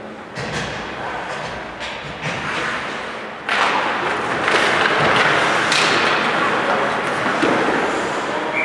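Ice hockey play in an indoor rink: sticks, puck and skates knock and scrape in front of the net, with several sharp hits. About three and a half seconds in, a sudden, louder sustained swell of noise begins and runs on with further knocks in it.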